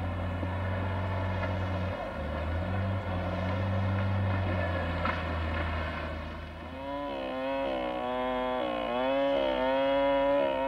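A low, steady engine drone, then about seven seconds in a two-stroke chainsaw takes over, its pitch dipping and rising several times as it cuts into a tree trunk.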